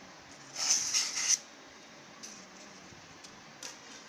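Polystyrene foam packing being pulled out of a cardboard box: a scraping, rustling rush lasting about a second, followed by a few faint light knocks.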